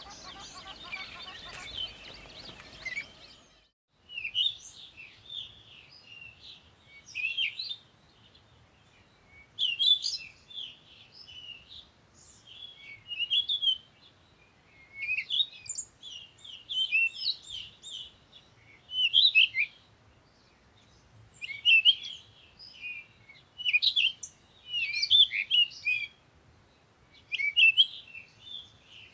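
Songbirds singing: short, rapid chirping phrases repeat every two seconds or so. For the first few seconds there is a denser chorus of chirps over background noise, which cuts off suddenly.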